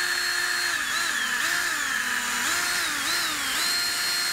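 Drill spinning a rubber eraser wheel against a plastic car bumper, rubbing off old vinyl decal residue. The drill's motor whine holds steady, then sags in pitch and recovers several times, with one longer dip near the middle, over a steady rubbing hiss.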